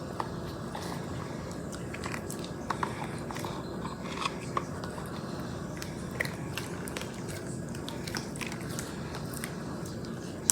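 Homemade slime, still a little sticky after activator was added, being kneaded and worked by hand: irregular small sticky clicks and pops over a steady background hiss.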